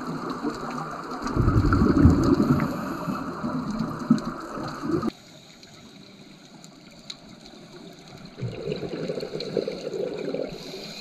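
Underwater sound of scuba divers' exhaled regulator bubbles gurgling and rushing, muffled. It drops suddenly quieter about five seconds in, and the bubbling picks up again near the end.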